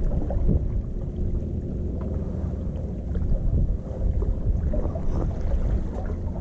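Steady low rumble of wind on the microphone and sea washing among breakwater tetrapods, with a few faint ticks.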